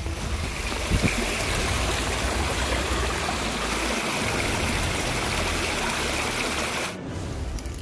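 Shallow mountain stream running over rocks in a steady rush. It cuts off abruptly about seven seconds in.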